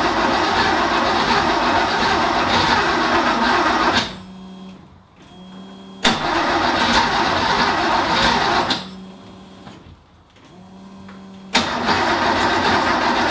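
The 1970 Porsche 914/6's two-litre carburetted flat-six being cranked on the starter for its first start after decades of sitting, in repeated attempts. The cranking dies away about four seconds in and again near nine seconds, leaving a quieter steady hum. It starts again abruptly each time, about six and twelve seconds in.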